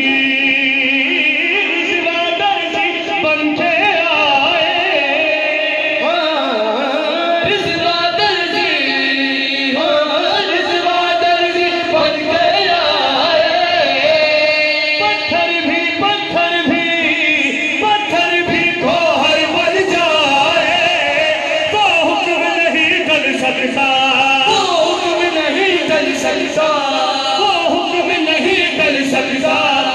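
Male voices singing an Urdu devotional manqabat together into microphones, with the voices amplified.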